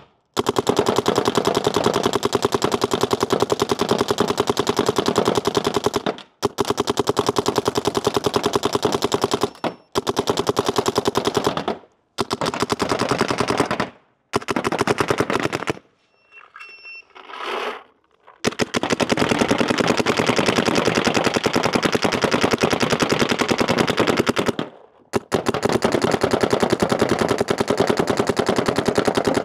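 DLX Luxe IDOL electropneumatic paintball marker firing in long rapid strings. The strings last several seconds each, with brief pauses between them and a longer lull about two-thirds of the way in. It is running on a 4500 psi compressed-air tank in a pod-by-pod efficiency test.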